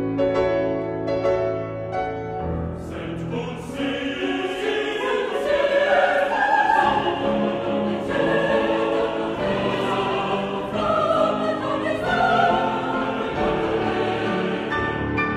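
A mixed choir singing with piano accompaniment. The piano chords sound alone at first, and the choir comes in about three seconds in and carries on over them.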